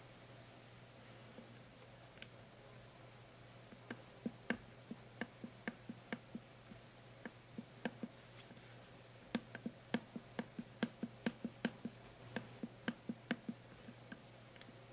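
A run of short, light clicks, about three to four a second, starting about four seconds in, pausing briefly, then coming thicker from about nine seconds in.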